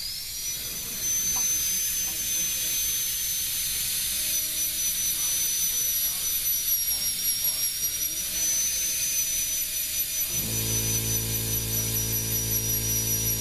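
High-speed rotary carving handpiece spinning a tiny number 3 carbide bit with a high, steady whine, reaching full speed right at the start. The bit is tapped on the wooden gunstock to stipple the background, and the pitch sags a little under the load. A low hum joins about ten seconds in.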